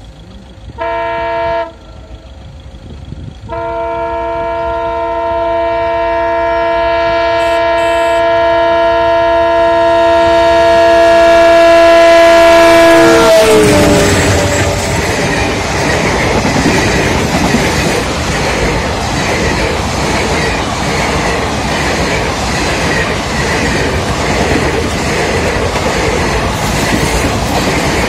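WDM diesel locomotive's multi-tone horn gives a short blast, then a long blast of about ten seconds that grows louder and drops in pitch as the locomotive passes. The passenger coaches then rattle by with a steady clickety-clack of wheels over rail joints.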